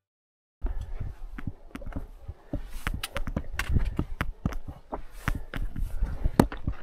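Hikers' footsteps on a rocky mountain trail: irregular crunches and clicks, several a second, over a low rumble, starting about half a second in.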